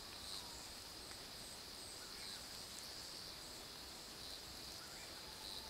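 Steady high-pitched chorus of night insects, with a fainter call repeating about twice a second higher up.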